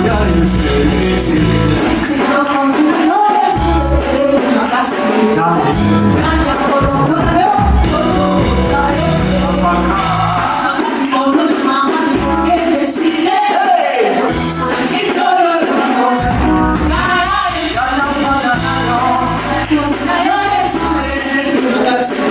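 Church worship music: voices singing over a band with a steady cymbal beat and bass, the bass dropping out for a few seconds now and then.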